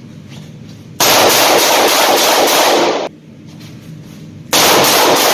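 Two strings of rapid pistol fire, each about two seconds long, the shots coming so fast they run together; the second string starts about a second and a half after the first stops.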